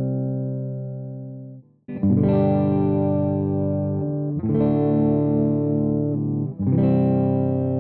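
Epiphone Les Paul electric guitar fitted with StewMac Parsons Street humbucker pickups, playing chords that are each left to ring. One chord fades out, then three more are struck about two and a half seconds apart.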